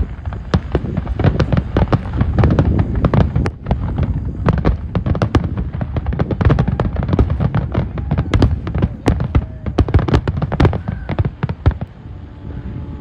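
Aerial fireworks barrage: many shells bursting in quick succession, sharp cracks over overlapping low booms, thinning out and fading near the end.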